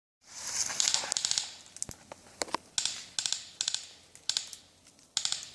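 Airsoft guns firing in several short full-auto bursts of rapid clicks, one after another, with a longer string of shots in the first second and a half.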